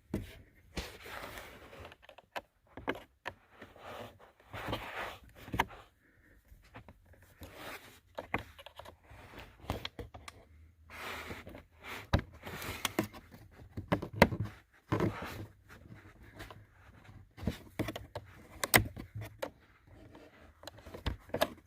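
A small screwdriver prying and scraping at a plastic cabin air filter cover whose retaining tabs are broken off, making irregular sharp clicks and knocks between stretches of plastic rubbing.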